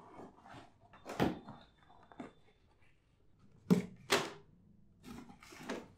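Cardboard box being cut open and its flaps pulled back: a few short knocks and scrapes of cardboard, the loudest two close together about four seconds in.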